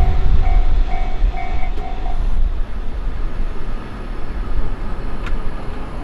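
A train rumbling past a Japanese level crossing and fading, while the crossing's electronic warning bell rings about twice a second and then stops about two seconds in as the signal clears.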